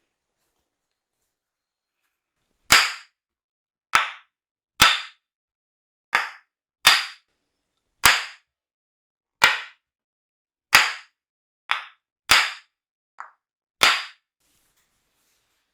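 About a dozen sharp smacks of a percussive head massage, roughly a second apart, beginning about three seconds in; one near the end is fainter.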